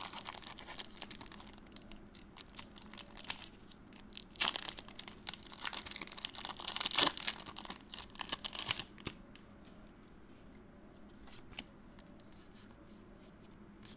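A Pokémon Evolving Skies booster pack's foil wrapper being torn open by hand, crinkling and crackling, with the loudest rips about four and a half and seven seconds in. After that come only fainter, sparse rustles.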